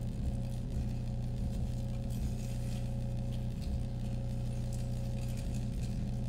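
Low, steady electronic drone in several layered pitches, with a thin steady tone above it and a scatter of light clicks and rattles: a wearable sonifying the performer's body signals, such as galvanic skin response, respiration and heart rate.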